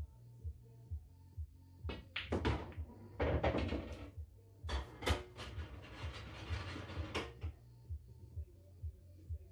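A pool shot: the cue strikes the cue ball about two seconds in, balls clack together, and a potted ball rattles and rolls away inside the coin-operated table. Background music with a steady beat plays throughout.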